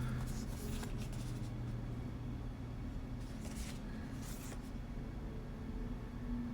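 Paper certificate being handled: a few soft rustles and brushes, with a faint low hum underneath.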